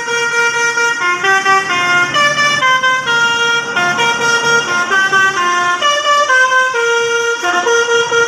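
A tour bus's 'basuri' telolet horn, a set of electric musical horns, playing a tune. It holds one note for about a second, then runs through notes that change pitch every third to half a second, loud.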